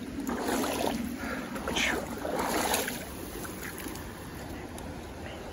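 Water splashing in several short, irregular bursts during the first three seconds as a freshly netted trout is handled in the river, over the steady rush of the current.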